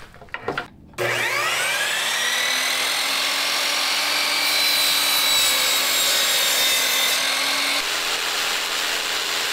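Kobalt sliding compound miter saw motor spinning up with a rising whine about a second in, then running steadily as it cuts trim. Near the end the sound shifts to a jigsaw cutting PVC trim.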